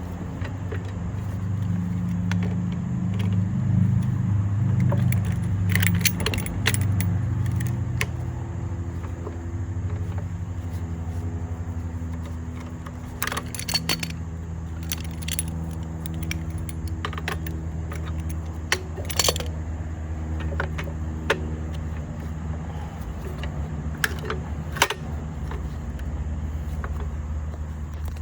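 Scattered metallic clinks and jangles of tools and steel jack parts being handled, over a steady low motor hum.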